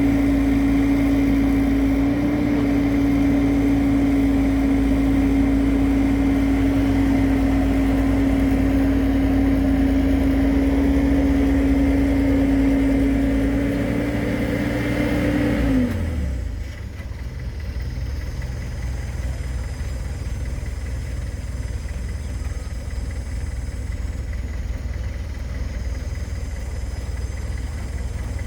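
Excavator's diesel engine running at working revs with a steady whine, then dropping in pitch and winding down to a lower, quieter idle a little over halfway through.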